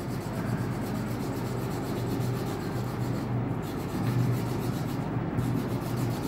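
Wax crayon rubbed over paper in quick, short colouring strokes, a steady scratchy rubbing.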